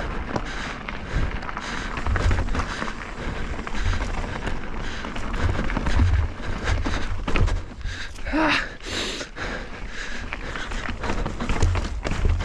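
Mountain bike riding over a rocky dirt trail: tyres rolling and crunching over rock, with frequent knocks and rattles of the bike over bumps and a low rumble of wind on the microphone. A brief pitched sound rises and falls about eight and a half seconds in.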